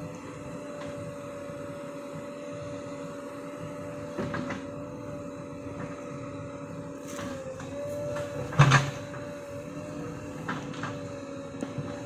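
JCB backhoe loader's diesel engine running steadily with a level whining hum, and a few sharp knocks of the bucket on stones and earth, the loudest about eight and a half seconds in.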